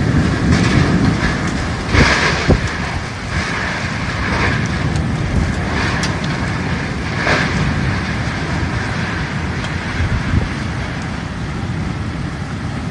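Storm wind and heavy rain, with gusts buffeting the microphone in a continuous loud rushing noise that swells and eases. A couple of sharp knocks about two seconds in.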